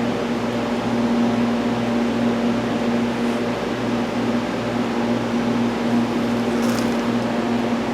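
A machine runs steadily with a constant hum and a whirring haze, keeping the same pitch and level throughout.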